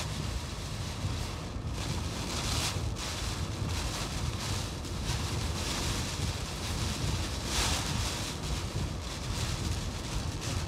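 Hurricane-force wind with driving rain: a steady low rumble of wind buffeting the microphone, with hissing gusts surging several times.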